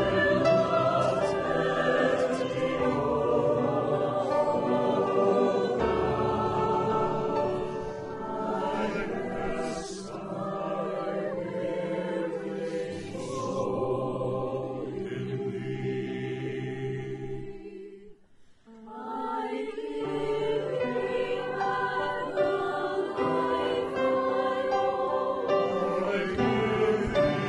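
Choir singing sacred music, with a brief pause about two-thirds of the way through before the singing resumes.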